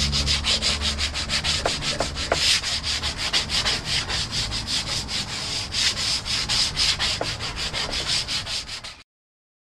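A hand scraper rasps back and forth over the surface of an old tiger oak table leaf in quick strokes, about four or five a second, lifting off old finish softened by chemical stripper. The sound cuts off abruptly near the end.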